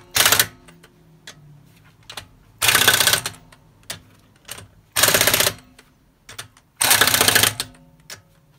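Pneumatic impact wrench running lug nuts down onto a Tesla Model 3 wheel: a short hammering burst at the start, then three bursts about two seconds apart, one per nut, with light clicks of the socket between them. The nuts are being snugged up before the final torque.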